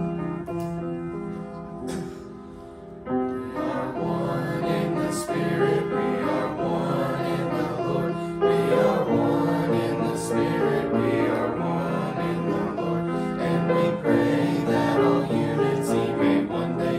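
Recorded gospel music with a choir singing. It thins out about two seconds in and comes back fuller a second later.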